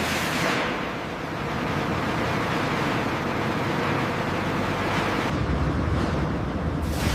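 Sawmill machinery running: a steady rushing noise over a low hum. About five seconds in, the high hiss drops away and the low hum grows stronger.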